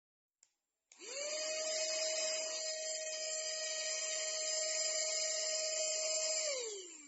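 Cordless handheld vacuum cleaner switched on: after a faint click its motor spins up to a steady high whine, runs for about five seconds, then is switched off and winds down with its pitch falling.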